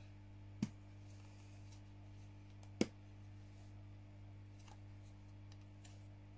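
Two sharp clicks, one under a second in and another about two seconds later, over a steady low hum.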